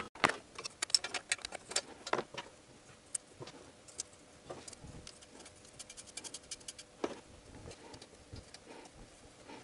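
Small metallic clicks and taps of a nut, bracket and fuel-pipe fittings being handled and fitted by hand on a VAZ 2111 engine, with a quick run of even ticks about halfway through.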